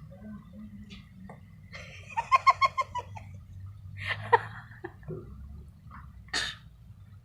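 A quick run of giggling about two seconds in, then a sharp vocal outburst and, near the end, a short breathy burst like a cough, over a low background hum.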